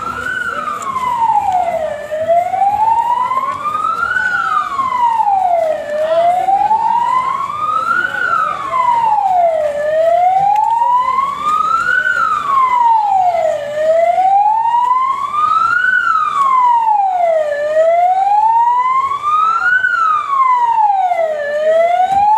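Emergency vehicle siren wailing, its pitch rising and falling slowly in a steady cycle of about four seconds.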